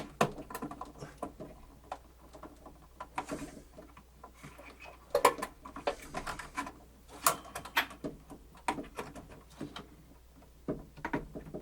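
Irregular clicks, taps and scrapes of hands and a tool working on a cassette deck's plastic panels and metal chassis during disassembly.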